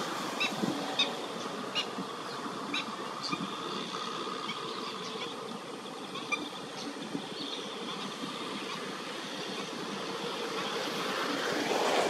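Open wetland ambience: a steady rushing background noise with a faint steady drone, and scattered short high chirps, most of them in the first few seconds.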